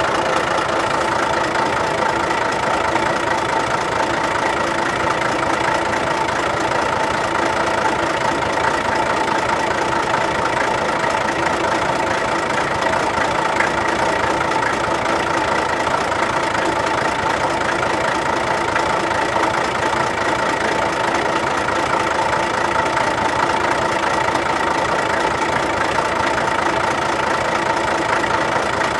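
Diesel truck engine idling steadily, with a knocking clatter.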